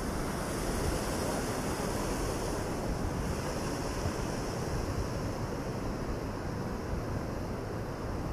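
Steady rush of high river water pouring through a weir's gates, with wind buffeting the microphone.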